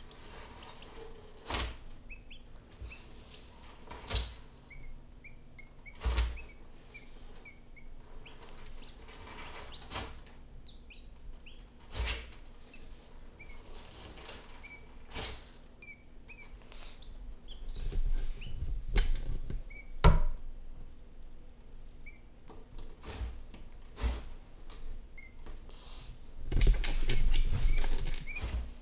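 Quail chicks peeping in short, faint repeated cheeps, over sharp knocks and scrabbling from an Argus monitor lizard moving and feeding against a hard bathtub surface. The loudest scuffles come about two-thirds through and again near the end.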